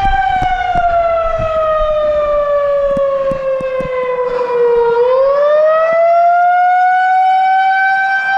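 Federal Signal 2001-130 outdoor warning siren sounding loud. Its tone slides steadily down in pitch for about five seconds, then climbs back quickly and holds high: a wail.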